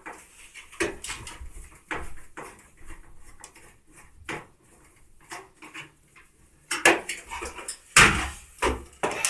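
Irregular metal clicks and clanks of a screw being turned out of a washing machine's lower front panel and the loosened metal parts being handled, with a few louder clanks near the end.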